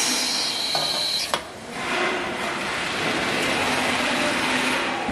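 Steady workshop noise of an assembly floor, with a faint high whine in the first second and a sharp click just over a second in.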